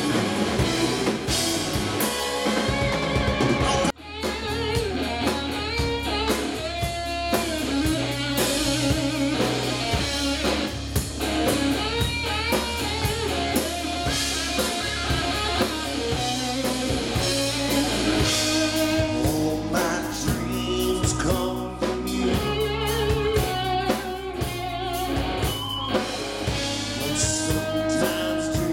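Southern rock band playing live: electric guitars, bass, drum kit and keyboard, with a lead guitar line bending in pitch. The sound drops out for an instant about four seconds in.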